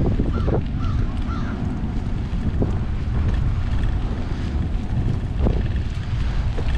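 Strong wind buffeting the microphone, a steady low rumble, with a couple of short bird calls about a second in.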